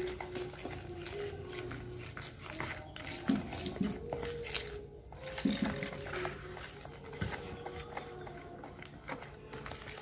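Flour-and-water batter being mixed in a plastic bowl: repeated wet scraping and clicking of a spoon against the bowl.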